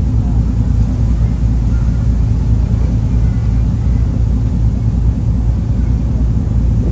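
Steady low rumble of a roll-on/roll-off ferry under way, with an even rushing noise above it.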